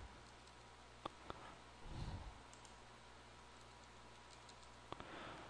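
Faint computer keyboard and mouse clicks over near-silent room tone: a couple of sharp clicks about a second in, scattered soft keystrokes, and a few more clicks near the end. A soft low thump comes about two seconds in.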